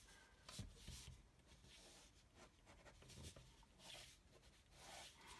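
Faint scratching of a ballpoint pen drawing a series of short sketch strokes on paper.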